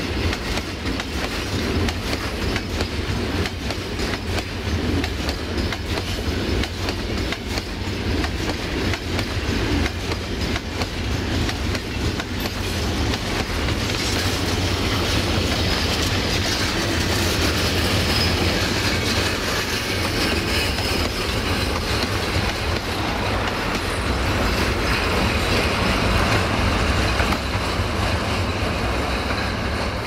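Freight wagons of a long goods train rolling past close by: a steady low rumble with steel wheels clattering over the rail joints. From about halfway a higher wheel squeal joins in and the sound grows a little louder.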